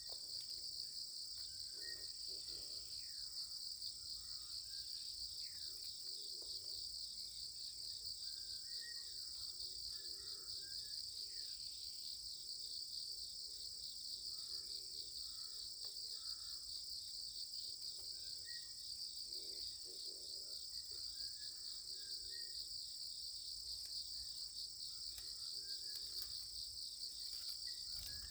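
Steady chorus of insects, a continuous high trill, with faint short chirps now and then.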